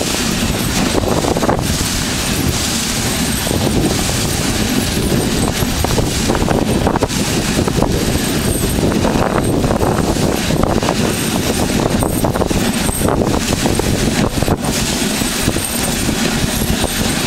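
Dog sled running over rough glacier snow: a steady scraping and rattling of the runners and the sled frame, which has no suspension, shaking over the uneven surface.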